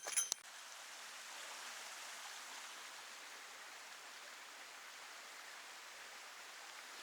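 A small bell jingling stops about half a second in, then a steady, even rushing noise of outdoor ambience.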